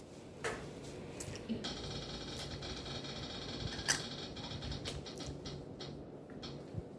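Quiet room with a few light clicks and taps from cups and hands at the table, over a faint hum.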